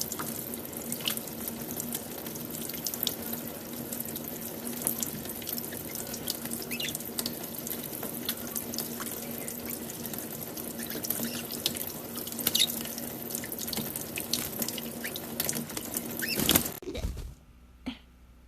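Water running steadily, with scattered small sharp splashes, until it stops abruptly about 17 seconds in.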